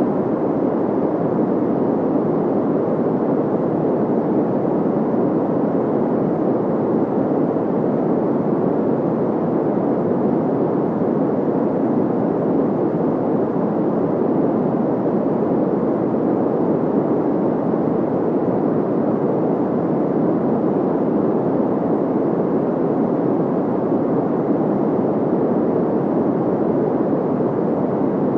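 Steady white noise sound effect: an even, unchanging hiss weighted toward the low-middle range, with little high treble.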